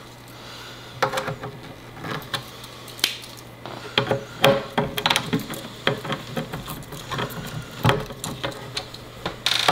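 A Phillips screwdriver turning out small screws from a plastic electronics case: irregular sharp clicks and short scrapes of the tool on the screw heads and casing.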